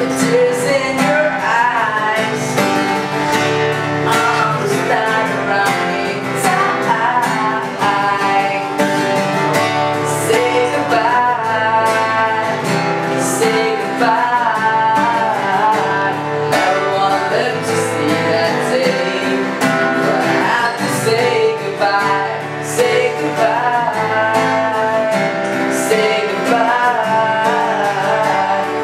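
Acoustic guitar strummed steadily while a young man sings along.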